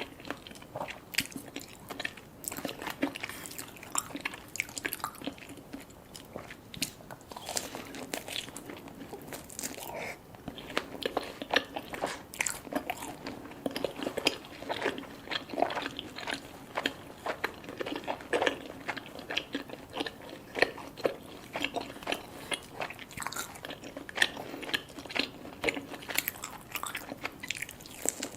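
Close-up eating: steady chewing and crunching of crisp food, with many short sharp bites and clicks in an irregular stream.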